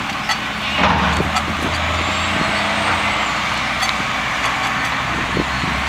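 An engine running with a steady low hum, which comes in about a second in, over a steady hiss.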